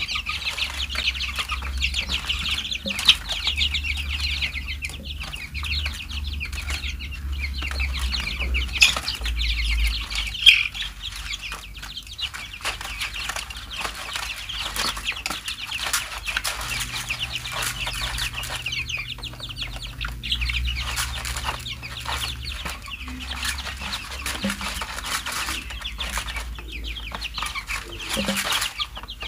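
A flock of 23-day-old chicks peeping continuously in a dense, high-pitched chorus while they feed, with scattered sharp clicks.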